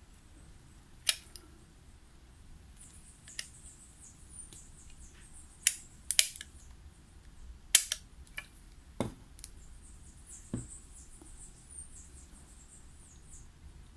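Small hand instruments clicking and tapping irregularly on a hard surface, with faint scraping in between, as in a dental splint wax-up worked on a stone model.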